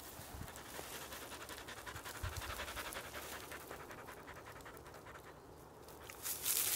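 A black puppy panting quickly and evenly, close up, the panting growing fainter after a few seconds. A louder burst of noise starts near the end.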